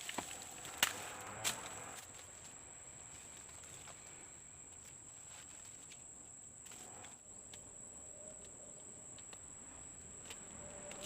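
A steady, high-pitched insect drone, with a few sharp clicks or steps in the first two seconds.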